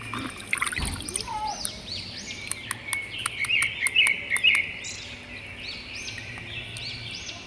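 Birds chirping, many short repeated chirps, with sharp ticks scattered among them.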